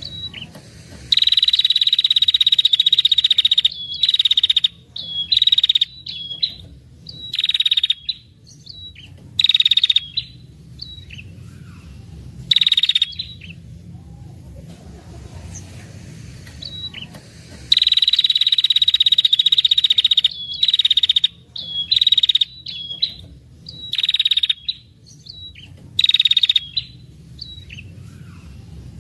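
Female ashy tailorbird giving long, rapid, buzzy trills (the 'ngetir' call), two long runs of about three seconds each broken up by many short half-second bursts, all at a high pitch.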